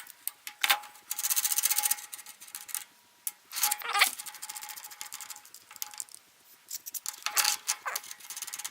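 Metal parts of a lathe's quick-change tool post and tool holders being handled and worked: scattered clicks, clinks and scrapes, with a short burst of rapid, even ratcheting clicks about a second in and a few louder metal knocks later.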